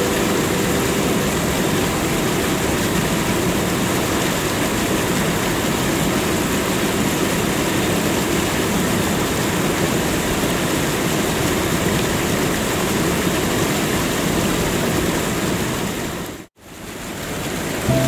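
Waterfall: a steady rush of falling water that fades out to nothing for a moment near the end, then comes back in.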